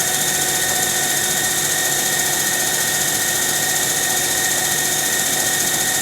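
Cue lathe running steadily, a constant motor hum with a steady high whine, as it spins a G-10 rod.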